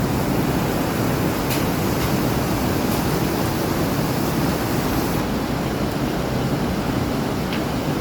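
Floodwater rushing in a steady loud wash, with a few faint clicks.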